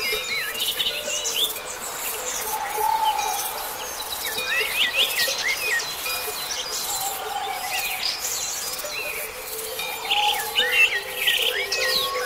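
Several songbirds chirping and singing at once, many short, quick whistled notes sliding up and down, over a steady low tone.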